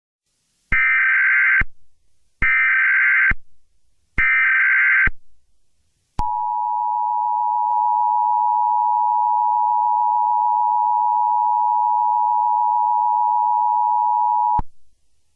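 Emergency Alert System alert: three short bursts of buzzy SAME header data, then the two-tone attention signal held for about eight seconds, which marks the start of an emergency alert message.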